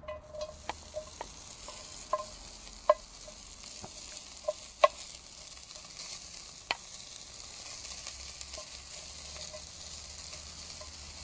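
Diced smoked pork belly sizzling as it drops into a very hot cast-iron Dutch oven, its fat starting to render. A wooden spatula knocks against the ceramic bowl about ten times in the first seven seconds, the bowl ringing briefly after some knocks.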